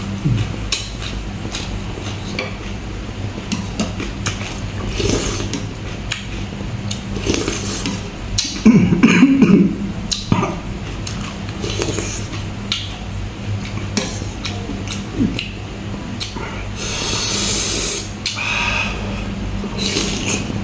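Close-up eating sounds: chewing and mouth noises over wet salad and broth, a metal spoon clicking and scraping in the food tray, and a hissing slurp about seventeen seconds in.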